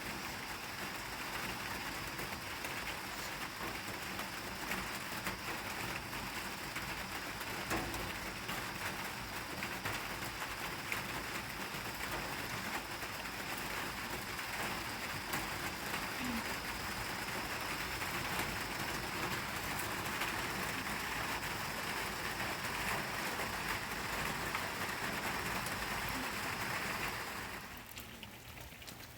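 Heavy rain falling steadily, a dense hiss with scattered drop ticks, cutting off suddenly near the end.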